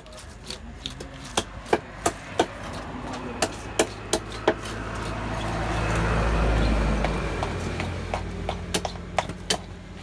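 A knife strikes a tilapia on a hard cutting slab in sharp, irregular knocks, several to the second at times. Meanwhile a motor vehicle's engine hum swells, loudest a little past the middle, then fades.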